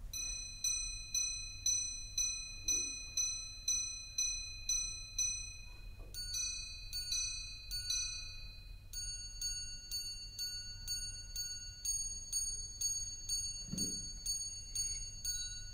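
ArtyA tourbillon minute repeater wristwatch chiming the time on its gongs. A run of single strikes sounds the hours, paired strikes on two tones sound the quarters, then a longer run of single strikes on a changed tone sounds the minutes, about two strikes a second and evenly spaced. The tone is very pure and crystalline.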